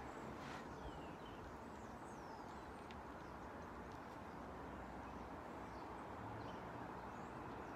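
Quiet outdoor background noise, steady throughout, with a few faint, short bird chirps.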